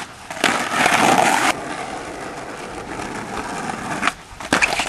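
Skateboard on rough concrete: a sharp crack as a trick is popped, then a loud stretch of wheel and board noise, then steadier rolling. Near the end, after a sudden drop in the noise, another pop and a few sharp clacks of the board as it lands.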